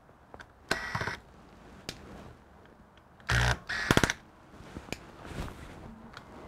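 Laptop parts and tools being handled on a repair bench: scattered light clicks, with a short clattering burst about a second in and a louder one between three and four seconds in.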